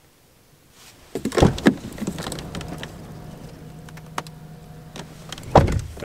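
A few knocks about a second in, then a car's electric window motor hums steadily for about three seconds and stops with a loud thump.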